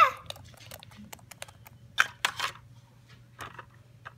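Scattered light clicks and taps of small plastic toy figurines being handled and moved over a wooden floor and a plastic toy, with a couple of louder knocks about two seconds in.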